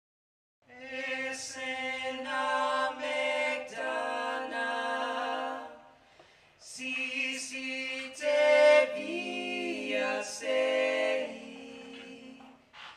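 Three voices, two women and a man, singing unaccompanied close harmony in the Bulgarian folk style. They hold sustained chords in two phrases, with a short break about six seconds in.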